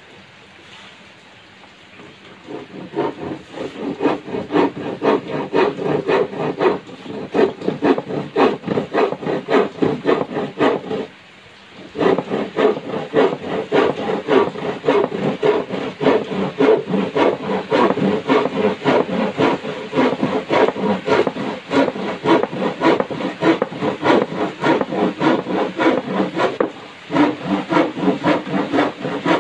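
Hand saw cutting through a thin plywood sheet, rhythmic push-and-pull strokes of the teeth rasping through the wood. The sawing starts about two seconds in and stops briefly twice, once near the middle and once near the end.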